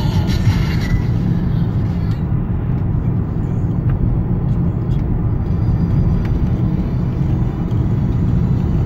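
Steady low rumble of road and engine noise inside a moving car's cabin at around 70 to 80 km/h.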